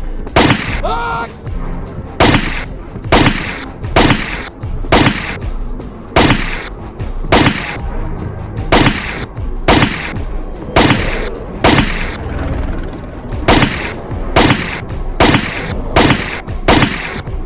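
Gunfire: single gunshots, about one a second, each with a short ringing tail, over background music.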